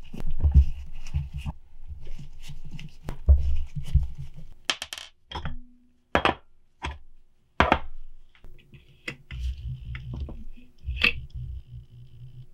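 Metal parts of a Kawasaki Ninja 500R twin-carburetor bank clinking and knocking as it is handled and taken apart on a workbench, with small screws set down, and several sharp clicks in the middle.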